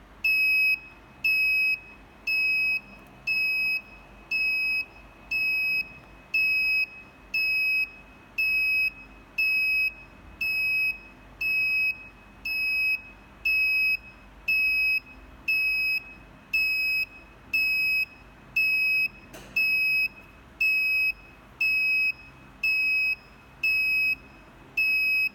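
Alarm buzzer on a NodeMCU alarm clock beeping steadily, a single high-pitched tone about once a second with each beep lasting about half a second: the alarm has been triggered.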